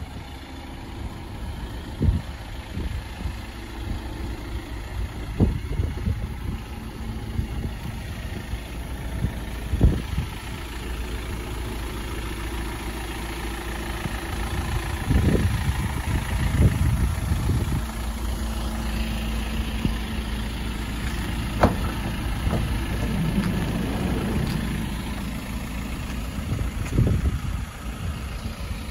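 Ford Transit minibus diesel engine idling steadily, with a few short thumps over it.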